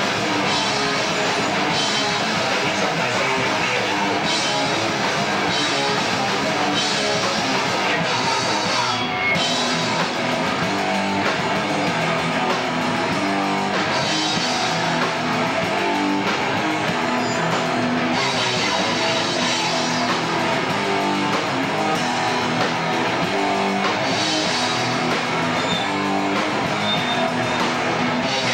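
Rock band playing live and loud: electric guitar, bass and drum kit, with cymbal crashes coming again and again.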